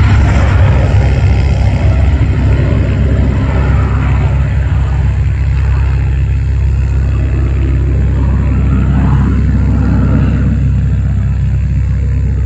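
Cessna 525A CitationJet CJ2's twin turbofan engines: a deep steady rumble with a hiss above it that slowly fades.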